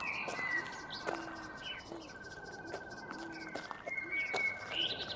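Birds chirping with short rising and falling calls over a steady, pulsing insect trill, with light taps roughly once a second.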